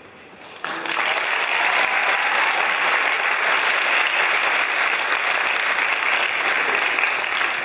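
Audience applauding: the clapping starts sharply about half a second in, holds steady, and dies down near the end.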